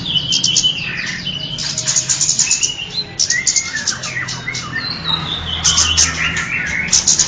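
Kemade songbird singing: bursts of rapid, very high chattering notes, several bursts over the stretch, broken by shorter whistled phrases that slide down in pitch, over a faint steady low hum.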